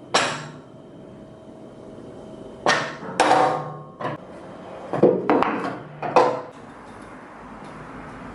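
About eight sharp knocks at irregular intervals, each ringing briefly, with two close pairs in the middle, over a faint steady background hum.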